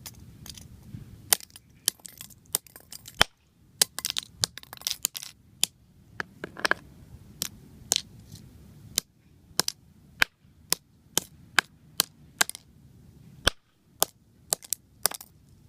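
A fidget spinner being struck hard over and over: a long, irregular run of sharp knocks and clacks, some in quick clusters, as its body is smashed to break parts loose.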